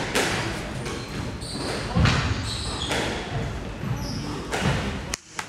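Squash rally: sharp hits of the ball off rackets and walls about once a second, the loudest about two seconds in, with short high squeaks of shoes on the wooden court floor between them.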